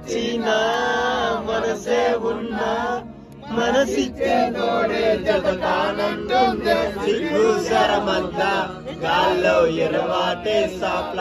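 A group of men singing together in chorus, several voices at once, with a short pause about three seconds in.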